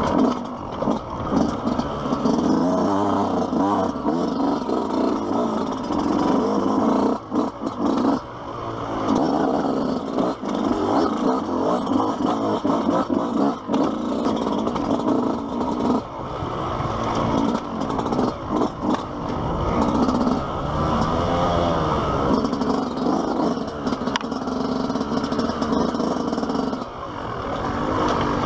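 Yamaha YZ125 125 cc single-cylinder two-stroke dirt bike engine revving up and down under varying throttle as it is ridden, with a few brief dips off the throttle, along with rattle from the bike over rough ground.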